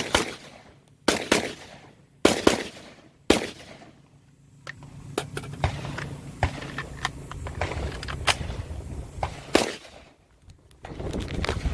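Gunshots, each a sharp crack with a short echo: four loud shots in the first three and a half seconds, two of them close together about two and a half seconds in. Fainter shots and clicks follow, with two more louder shots near the end.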